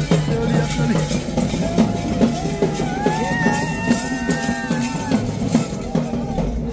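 Music with a drum beat and a melody line that holds long notes about halfway through.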